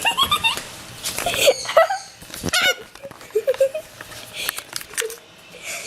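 Green-naped lorikeet chattering in quick chirps, with shrill screeches about one and a half and two and a half seconds in.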